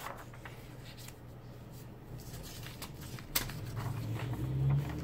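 Sheets of vellum sticker paper being handled and slid over one another, a soft rustling with a sharp tap about three and a half seconds in, after which the handling gets louder.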